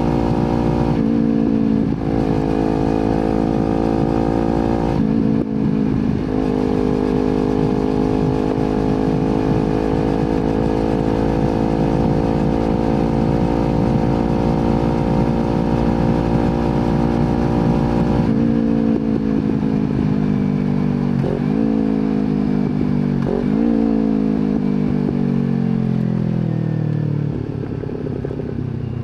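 Kawasaki Z250 parallel-twin running through an aftermarket slip-on exhaust while riding. The note breaks briefly about one and five seconds in as the rider shifts, holds steady at cruising revs, then drops off. Two short throttle blips come partway through the slowdown, and the revs fall steadily near the end as the bike decelerates.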